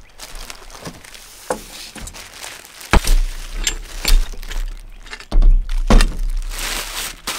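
Plastic wrapping rustling and crinkling as it is pulled off a new coilover shock, broken by sharp knocks, the loudest about three seconds in, and a few low thuds as the coilover is laid down on the pickup's bed.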